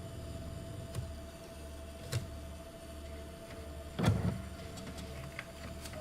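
ATM's internal cash-handling mechanism humming steadily, with single clicks about one and two seconds in and a louder short mechanical whirr and clunk about four seconds in, as the machine works through a withdrawal.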